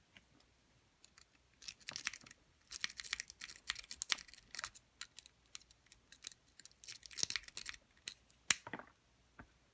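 A worm rake scrubbing in and out of a Knog padlock's keyway, making quick runs of light metallic clicking and scraping against the pins. A single sharp click about eight and a half seconds in is the loudest sound, as the tension wrench set at the top of the keyway slips out.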